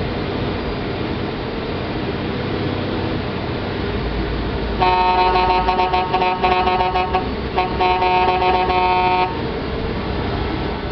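A heavy diesel truck engine idling steadily, with a truck air horn blowing two long, loud blasts about halfway in, the second a little shorter than the first. The horn sounds several tones at once, like a chord.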